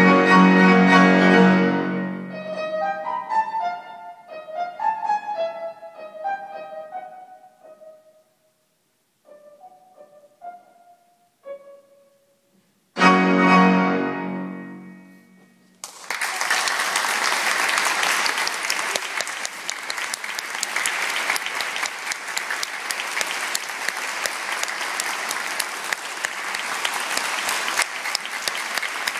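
Grand piano ending a classical piece: a loud chord rings away into a run of falling notes, then a few quiet single notes, then one last loud chord that dies away. About three seconds after that chord, the audience breaks into applause that goes on steadily.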